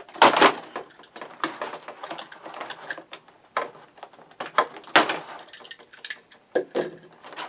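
Irregular sharp clicks and knocks of a hard plastic packaging tray being handled while the zip ties holding a toy quadcopter in it are cut. The loudest clicks come about a quarter second in and again about five seconds in.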